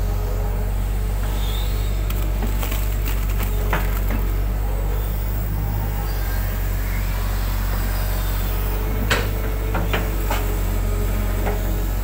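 Hitachi hydraulic excavator's diesel engine running steadily under load as the arm and bucket dig silted mud out of a ditch, with a few sharp knocks about four seconds in and again around nine to ten seconds in.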